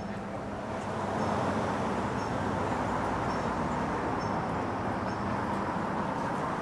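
Steady hum of city traffic, growing a little louder about a second in and then holding even, with a few faint high chirps over it.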